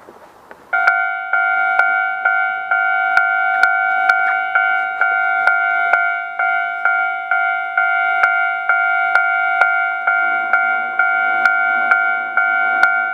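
Japanese railway level-crossing alarm bell starting to ring about a second in, then striking steadily about twice a second on the same clanging two-tone note, warning that a train is coming. A lower hum joins about ten seconds in.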